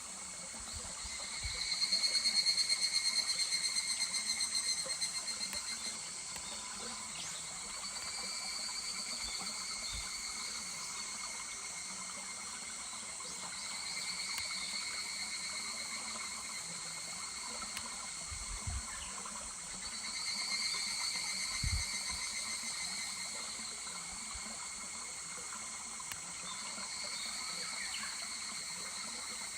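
Higurashi (evening cicadas) calling in pulsing, fading trills, one chorus after another about every six seconds; the loudest comes about a second in. A babbling stream runs steadily underneath, and there are a few dull low thumps.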